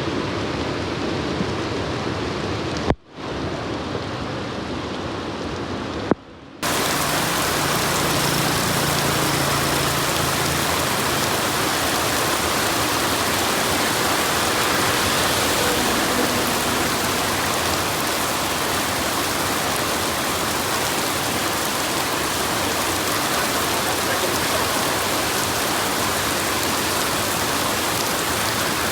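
Steady rain falling, with two brief dropouts about three and six seconds in; after the second, the rain is louder, with more hiss.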